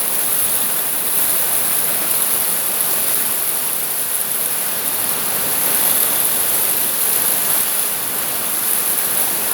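Heavy rain falling steadily: a continuous, even hiss.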